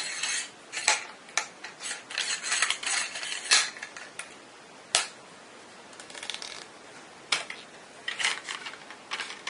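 Mantona Scout tripod leg being worked by hand: its flip-lock clips snap open and shut and the telescoping leg sections slide, in a series of irregular clicks and short rasps. The sharpest clicks come about three and a half and five seconds in.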